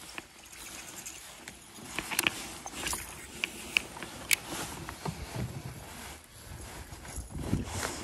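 Handling noise on a plastic fishing kayak: scattered sharp clicks and knocks from about two seconds in, then several low thumps against the hull near the end, over a low hiss of water and air.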